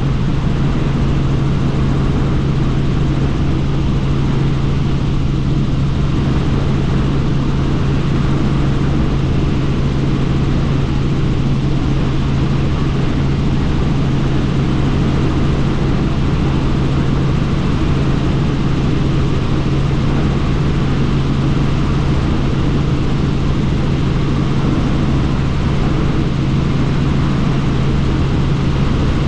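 Helicopter in flight: steady rotor and turbine noise with a strong constant low hum, unchanging throughout.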